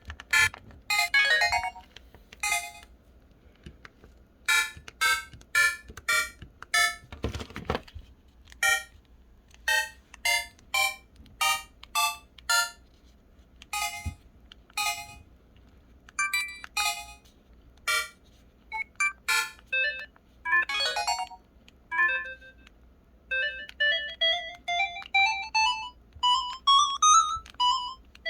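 Pantech SKY IM-S480 phone's keypad tones: short electronic beeps at varying pitches, one per key press, about one a second. About 21 seconds in they change to clarinet-voiced key tones that climb step by step in pitch.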